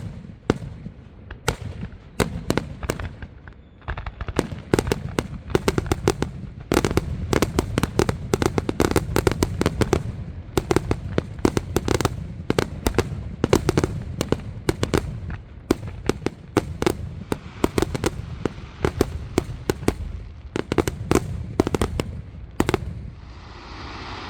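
Fireworks finale: a rapid, dense barrage of aerial shell bursts and crackling reports, many per second, thinning out and stopping shortly before the end.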